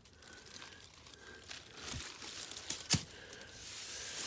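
Rustling and crinkling, with two sharp knocks about a second apart (the second the loudest) and a louder rustle near the end.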